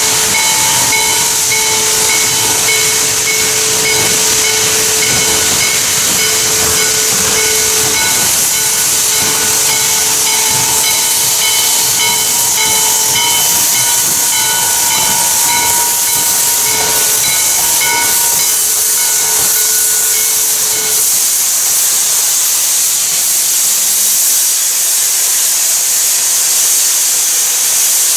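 Steam hissing from the open cylinder cocks of Western Maryland 1309, a 2-6-6-2 Mallet steam locomotive, as it passes at close range: a loud, steady rush. Faint pitched tones come and go over the hiss and fade out about three-quarters of the way through.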